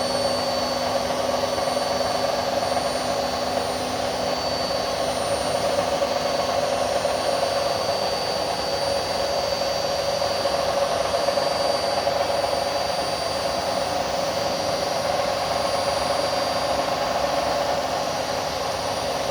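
Indesit My Time washing machine with its drum spinning: a steady rumbling roar with a constant whine, the noise of drum bearings that are starting to wear out.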